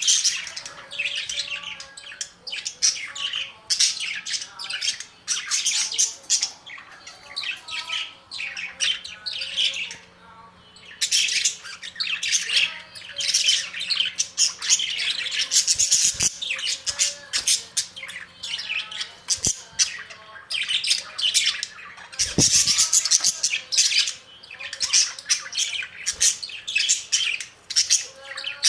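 A group of budgerigars chattering and squawking: a dense stream of quick, high chirps that barely lets up, with a short lull about ten seconds in. A few dull knocks come in the second half.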